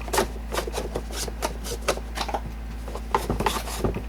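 Plastic halves of a Dodge Ram HVAC heater box being handled and slid together with their blend doors: a run of irregular clicks and knocks of hard plastic, over a steady low hum.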